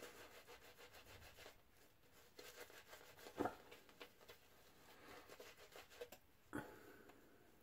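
Synthetic shaving brush with a 24mm tuxedo knot scrubbing shaving-soap lather over a stubbled face: a faint, soft rubbing made of quick strokes, with two brief louder moments about halfway and near the end.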